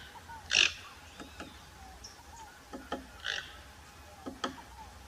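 Farm animal calls: short, noisy squeals about half a second in and again past three seconds, with brief clicks and grunts between them.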